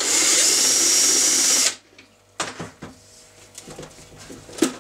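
Cordless drill-driver running in reverse for about a second and a half, unscrewing an oval-headed Krups security screw with a homemade bolt bit, then stopping abruptly. A few light knocks follow as the drill is set down and the machine is handled.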